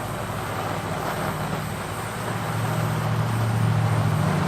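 Coal forge blower running, a steady low hum over a rush of air blowing into the fire, a little louder about halfway through.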